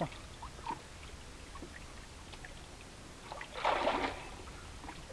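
Faint river water moving against the rocks under a low steady rumble, with a short rush of noise about three and a half seconds in.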